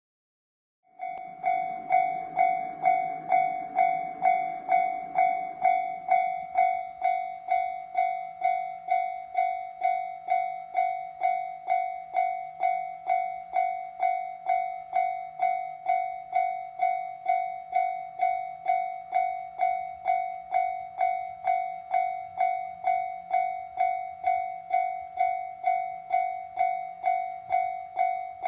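Japanese railway level crossing's electronic warning bell starts about a second in and rings on evenly, about two dings a second, signalling an approaching train. A low rumble sits under it for the first few seconds.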